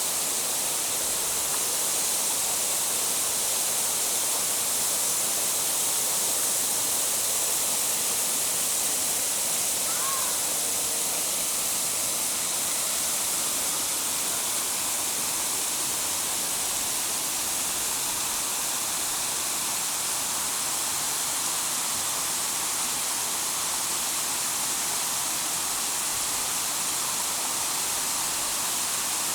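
Steady rushing of a jungle waterfall, an even hiss strongest in the high range with no breaks. A faint short chirp comes about ten seconds in.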